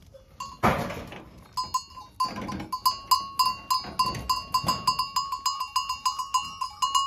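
Goats bleating, four loud calls, over a small metal bell clanking in quick, even strokes, about four a second, starting about a second and a half in.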